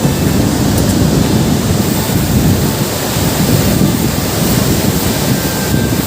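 Wind buffeting the microphone: a loud, steady, rumbling noise with no other clear sound in it.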